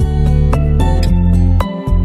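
Instrumental background music: plucked notes over a steady low bass, the bass dropping out briefly near the end.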